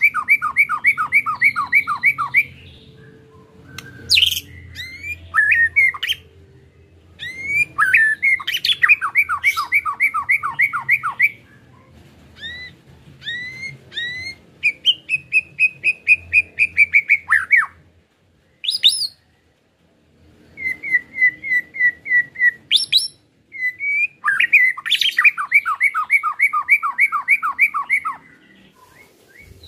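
White-rumped shama (murai batu) singing its rapid 'ketrekan' chatter: phrases of fast, evenly repeated notes, about ten a second, each burst lasting two to five seconds with short pauses between.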